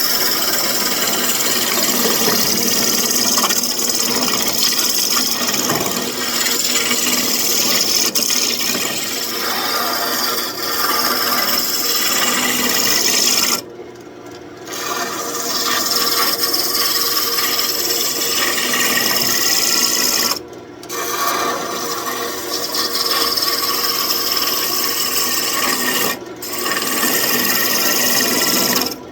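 Lathe tool cutting into a spinning birch branch: heavy, aggressive roughing cuts that shave off a lot of wood with a loud, continuous shaving noise. The cut breaks off briefly three times, for about a second near the middle and for a moment twice later, as the tool lifts off the wood.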